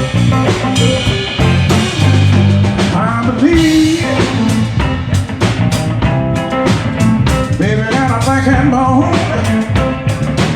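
Live blues band playing an instrumental break: electric guitar lead with bent notes over a bass line and a steady drum-kit beat.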